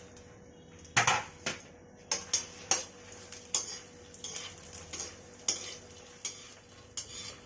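Metal spoon stirring makhana (fox nuts) roasting in ghee in a kadhai, with irregular clicks and knocks against the pan about every half second, the loudest about a second in. A faint steady hum runs underneath.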